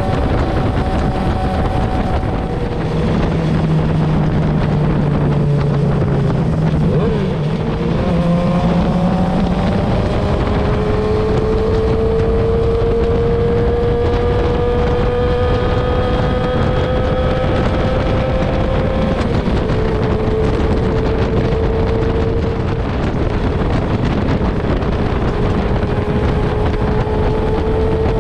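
Motorcycle engines running at road speed under wind rush on the microphone. The engine note climbs slowly as the bike accelerates in gear, steps down about two-thirds of the way through, then climbs again.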